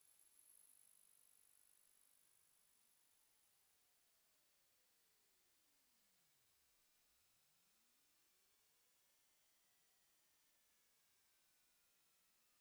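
A single pure electronic test tone, very high-pitched, gliding slowly and steadily upward: a hearing-test frequency sweep probing the upper limit of hearing.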